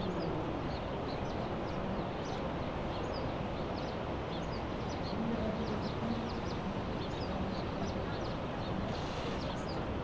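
Steady rushing noise of breaking surf and wind, with small birds chirping in many short, high calls throughout.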